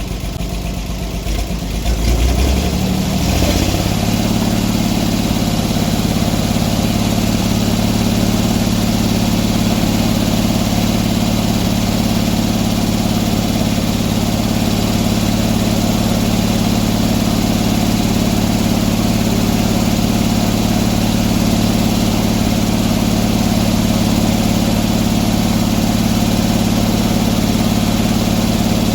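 Gasoline engine of a portable sawmill, throttled up about two to four seconds in and then running steadily at high speed, as when the mill is brought up to cutting speed.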